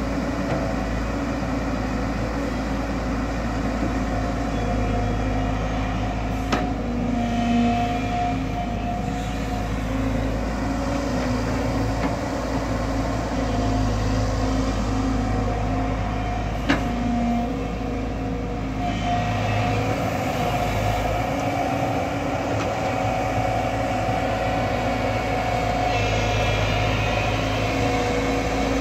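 JCB tracked excavator's diesel engine running steadily as the machine digs in thick mud, with two sharp knocks about ten seconds apart.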